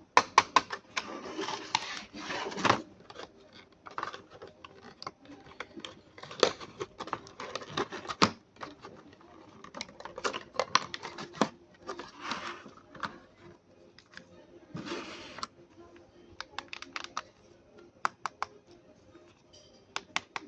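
Irregular clicks and taps mixed with short spells of rustling, the sound of hands handling cardboard and plastic packaging and the plastic parts of a toy RC truck.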